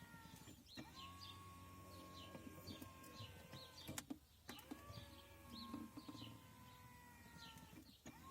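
Brake Buddy Classic 3 portable supplemental braking unit running its auto-start setup cycle: a faint motor whine that runs about three seconds, stops briefly, and starts again with a short upward slide, repeating as the unit goes through its tests, figuring out the pedal pressure. Birds chirp faintly in the background.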